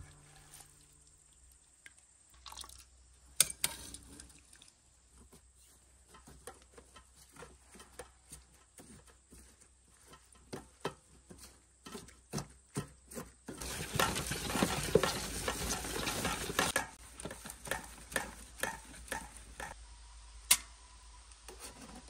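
Metal kitchen utensils clicking and scraping against a stainless pot and a metal sieve as cooked chokecherries are scooped out and worked through the sieve. There is a denser stretch of wet mashing and rubbing partway through, and a single sharp knock near the end.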